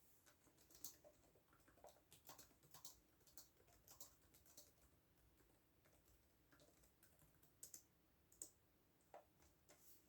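Faint computer keyboard typing: a quick run of keystrokes for the first four seconds or so, then slower, scattered keystrokes.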